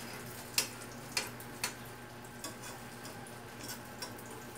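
An egg frying in a steel pan on a gas stove, with a faint steady sizzle, and a metal spoon clicking against the pan three times in the first two seconds.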